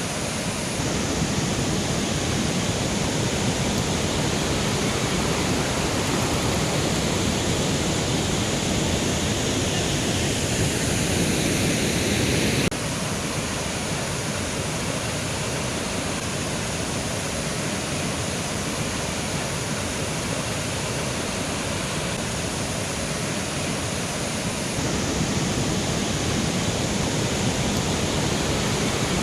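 Mountain river flowing: a steady, loud rush of water. The level steps abruptly about a second in, near 13 seconds and near 25 seconds.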